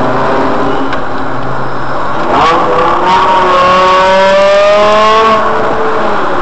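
Car engine accelerating hard: its pitch climbs steadily for about three seconds, then drops back as it shifts up a gear.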